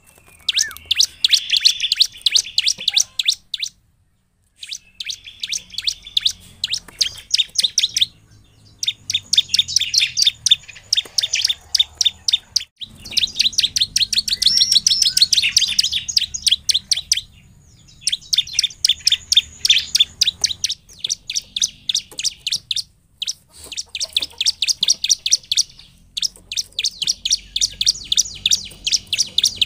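Bar-winged prinia (ciblek) singing: fast runs of sharp, high chirps at about ten a second, each run lasting a few seconds, with brief pauses between them.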